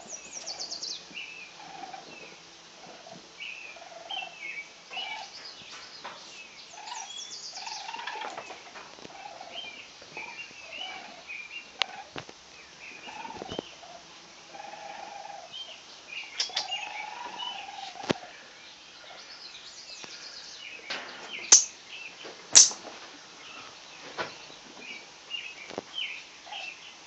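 Many short, high squeaks and chirps from small animals, scattered and irregular, with a few sharp knocks; the two loudest knocks come close together about two-thirds of the way through.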